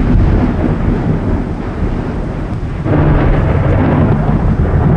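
Loud, deep rolling rumble, a thunder-like sound effect, which swells again about three seconds in.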